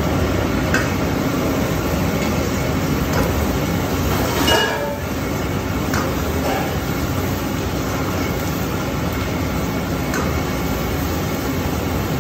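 Gas burner of a commercial range running at high flame under a wok, a steady rushing noise, with a metal ladle clinking against the wok every few seconds; the loudest, ringing clink comes about a third of the way in.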